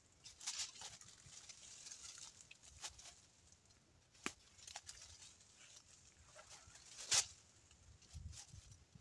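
Stiff brush scrubbing a black tar, used-oil and diesel mixture onto a wooden beam, with scattered sharp clicks and knocks as the brush and a bottle are handled; the loudest knock comes about seven seconds in.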